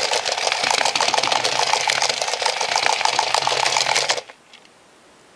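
Battery-powered walking toy dog's small geared motor whirring with a rapid, dense clicking as the figure walks, then stopping abruptly about four seconds in.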